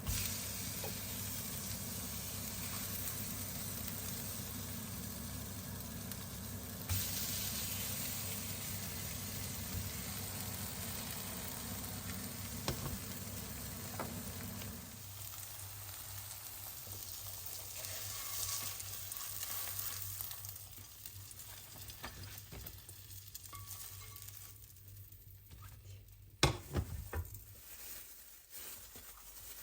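Smelt sizzling as it fries in oil in a pan, a steady hiss that thins out toward the end, with a low hum under it that stops about halfway. A single sharp knock comes near the end.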